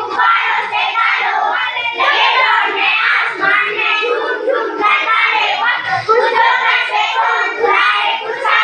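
A group of schoolchildren singing together in unison without a break.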